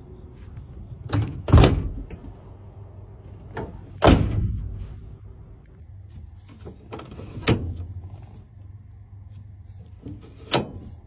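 A series of heavy metal clunks and latch clicks from the door and interior levers of a 1973 Dodge Sportsman van being worked: about six knocks, the loudest near one and a half and four seconds in, each with a short low boom after.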